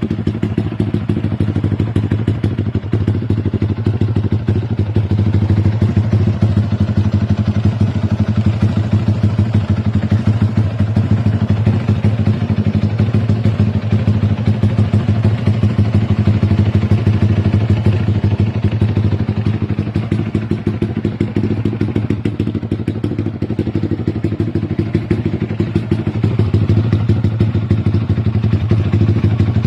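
Yamaha Y15ZR (MX King) underbone's 150cc single-cylinder four-stroke engine idling steadily, with a fast, even exhaust pulse.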